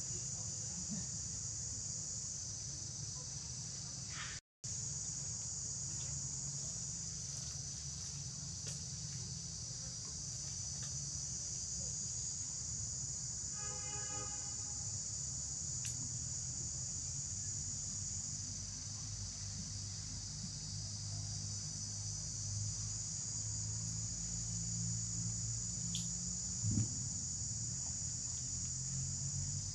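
Steady, high-pitched chorus of insects shrilling without a break. The sound cuts out completely for a moment about four seconds in, and a short pitched call is heard about halfway through.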